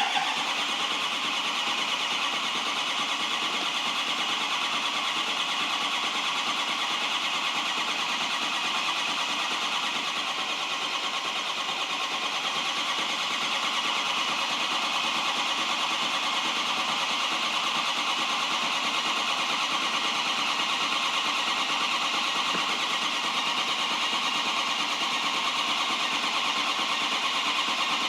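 Starter cranking a 2005 Ford 6.0 Power Stroke V8 turbo diesel at a fast, steady pace for a long stretch without the engine catching: a crank-no-start condition.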